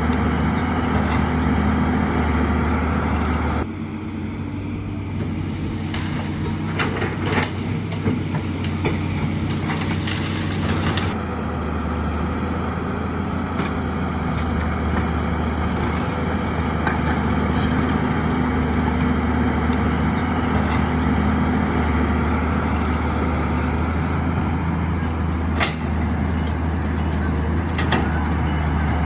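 Excavator's diesel engine running steadily, with scattered sharp knocks. Between about 4 and 11 seconds in the engine note drops away and the knocks come more often.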